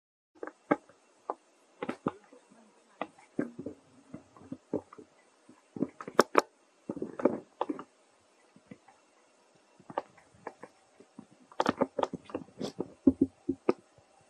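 Irregular short crackles and clicks of a baby monkey eating and moving among dry fallen leaves. A few louder ones come about six seconds in, and there is a cluster near the end.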